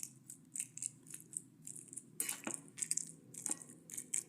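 A fork mashing steamed dried figs stuffed with garlic cloves: short squishing, scraping strokes, about three a second.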